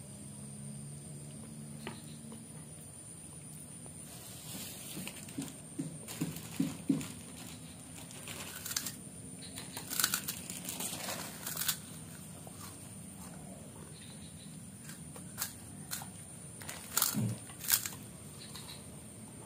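A child biting and chewing kerupuk, a crisp Indonesian cracker: sharp crackling crunches in scattered clusters, a few seconds in and again in the middle and near the end.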